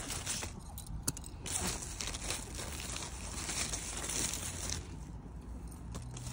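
Large pumpkin leaves and vines rustling and crinkling as a hand works among them, with a few small clicks, while a pumpkin is cut from the vine with secateurs.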